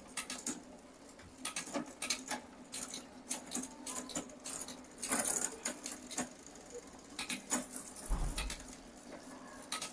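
Bicycle chain running over a 7-speed freewheel and through a Shimano Tourney rear derailleur as the drivetrain is turned, giving a patter of irregular light clicks and ticks. A short low thud comes a little after eight seconds.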